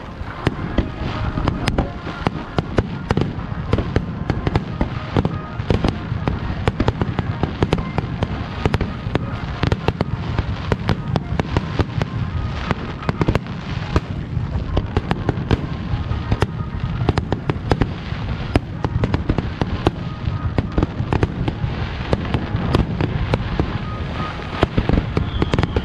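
Fireworks display: a rapid, unbroken barrage of shell bursts and crackling reports, several bangs a second.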